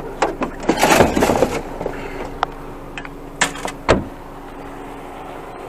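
Junk being handled and pulled about by hand: a rustling scrape about a second in, then several sharp knocks and clicks, over a steady low hum.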